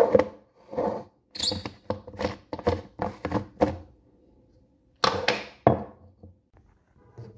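Plastic Magic Bullet blender cup and its screw-on parts being handled: a quick run of clicks and knocks from twisting and fitting, then two louder knocks about five seconds in.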